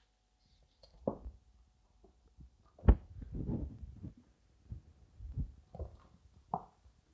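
A cat playing with a toy on a wooden floor: scattered soft thumps and knocks with some rustling. The sharpest knock comes about three seconds in.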